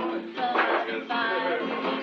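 Steel-string acoustic guitar strummed in chords while a young man sings along.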